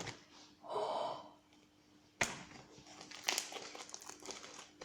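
Homemade sticky slime being blown into a bubble: a short, squeaky blowing sound about a second in, then a sharp pop just after two seconds, followed by wet, sticky crackling as the burst slime is handled.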